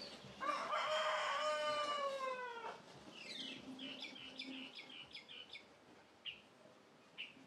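A rooster crows once, a single long call of about two seconds that bends down in pitch at its end. A quick run of high chirps follows, then two more single chirps near the end.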